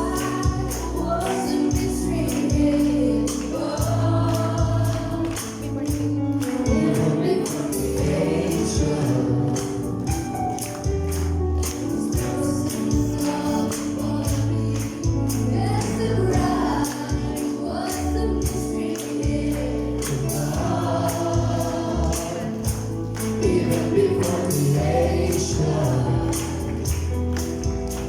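Gospel music with a choir or congregation singing, backed by instruments and a steady tambourine beat.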